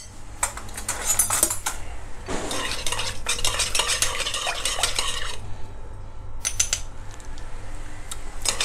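Metal spoon stirring a sauce in a glass mixing bowl, clinking and scraping against the glass, busiest in the middle with a short lull after, over a low steady hum.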